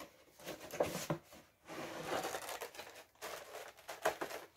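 Packaging being handled: plastic and cardboard rustling and crinkling in irregular bursts, with small clicks.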